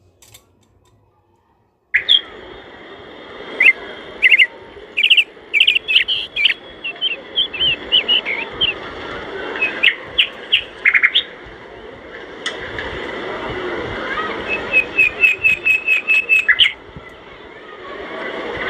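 Near silence for about two seconds, then small birds chirping over a steady background hiss, with a quick run of repeated notes near the end.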